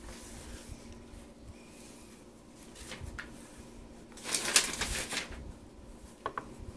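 Fabric being handled on a cutting mat: cut pieces rustle and slide as they are laid together and smoothed, with a few light taps and one louder rustle about four seconds in.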